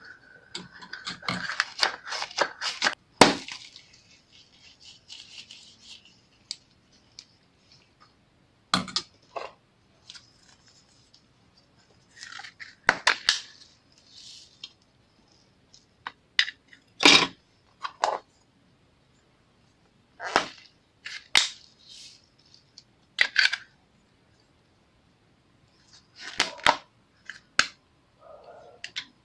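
Slime being squished and folded by hand, giving sharp pops and crackles in short clusters with quiet pauses between them.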